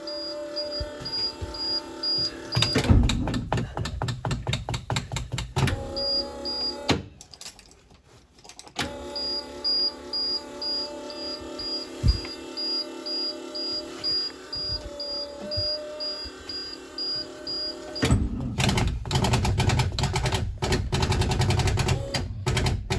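Clicking from a 1994 Thomas 3800 school bus with an International DTA360 diesel, coming as long runs of rapid clicks, one a few seconds in and another near the end, over a steady hum with a faint regular pip.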